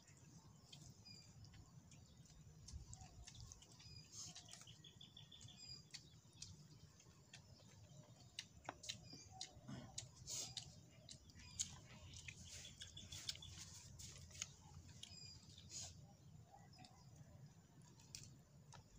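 Faint chirps and short trills of small birds, with scattered light clicks.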